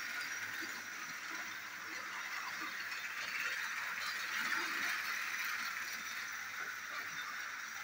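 Motorized toy train engine (a Gordon model) running on plastic track: the steady whir of its small battery motor and gears, with its wheels rattling along the track.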